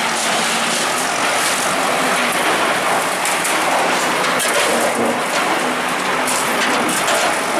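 Bulldozer demolishing a building: a loud, steady, dense clatter of machinery and breaking masonry, with no pause or letup.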